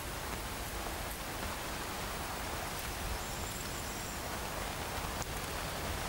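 Steady outdoor background noise: an even hiss with a low, unsteady rumble underneath.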